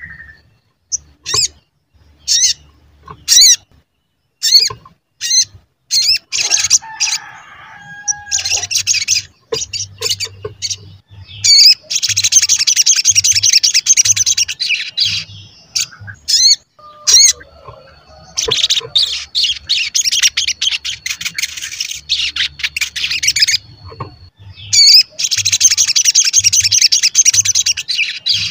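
Caged sunbird calling with sharp single chirps for the first several seconds, then singing in long runs of fast, high twittering song, four runs of a few seconds each.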